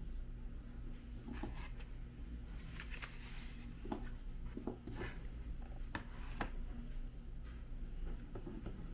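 Hands handling a paper-cased C6-5 model rocket motor and a cardboard rocket tube on a workbench: light rubbing and scraping with a handful of small knocks, over a steady low hum.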